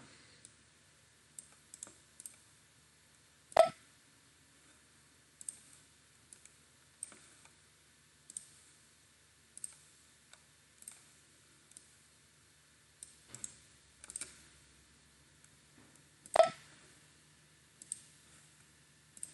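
Computer mouse clicking: scattered short, sharp clicks about a second apart, two of them, about 4 and 16 seconds in, much louder than the rest.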